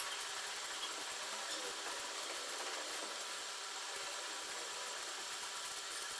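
Fiberglass chopped strand mat rustling softly as it is handled, laid out and folded by hand, over a steady low background hiss.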